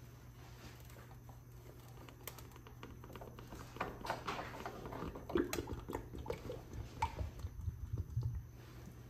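Oil running out of a hydrostatic transaxle's filter port into a plastic drain pan as the spin-on filter is unscrewed by hand. From about four seconds in it splashes irregularly into the pan, and it stops shortly before the end.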